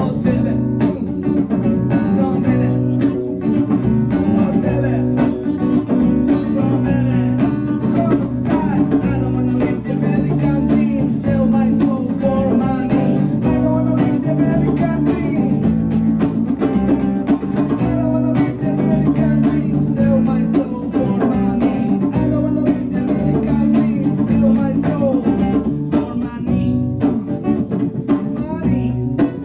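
A live band playing a song: guitar with a drum kit keeping a steady beat, and a singing voice over it.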